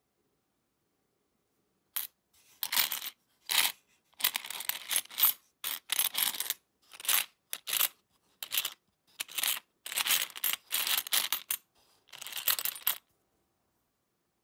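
Loose old Philippine coins clinking and sliding against each other in a heap in a box, in about a dozen short jingling rushes that start about two seconds in and stop about a second before the end.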